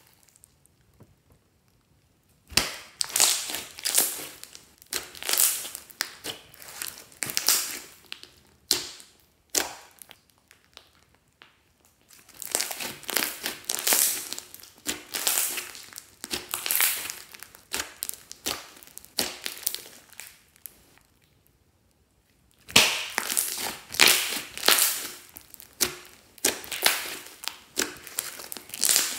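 Hands squeezing, stretching and kneading a large lump of thick slime, giving sticky squishing and crackling sounds. They come in rhythmic pulses, about one every half second to second, in three runs broken by short pauses.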